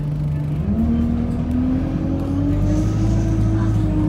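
Bus engine heard from inside the bus, running steadily, then picking up revs about half a second in as the bus pulls away, its pitch rising slowly and steadily.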